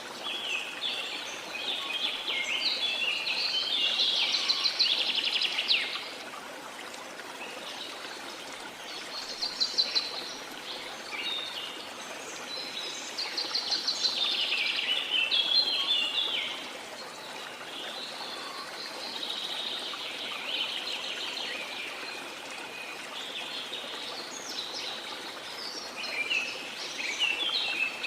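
Songbirds singing in bursts of quick chirping phrases every few seconds over the steady rush of a waterfall.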